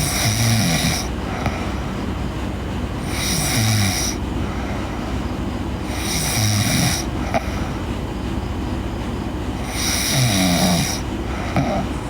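A sleeping girl snoring, four snores about three to four seconds apart, each a rough breath with a low tone that drops in pitch. A steady low rumble runs underneath.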